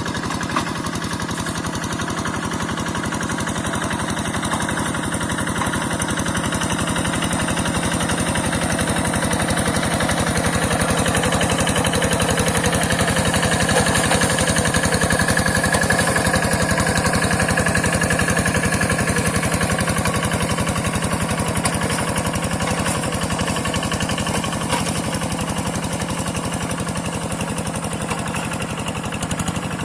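Two-wheel hand tractor's single-cylinder diesel engine running steadily with an even, rapid firing beat, getting a little louder through the middle stretch.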